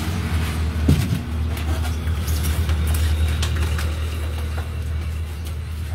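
A steady low engine drone, like a motor idling, with scattered light clicks and knocks from fish being handled and laid on a metal weighing scale.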